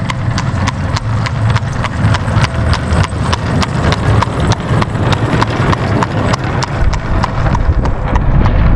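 Horses' hooves clip-clopping at a steady walk, about three or four strikes a second, over a low steady rumble.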